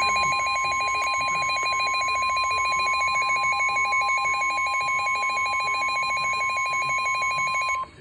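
NOAA Weather Radio warning alarm on a Midland weather alert radio: a steady 1050 Hz tone with a rapidly pulsing, beeping alert tone over it, both cutting off abruptly near the end. It signals that a warning, here a Severe Thunderstorm Warning, is about to be read.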